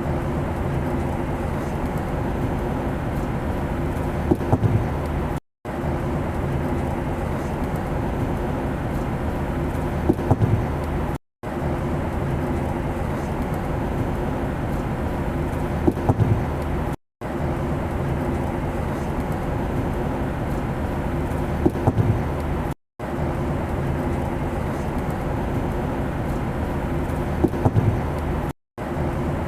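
Steady low drone of an airplane, played as a short loop that repeats about every six seconds. Each repeat cuts out briefly, and a small knock comes shortly before each cut.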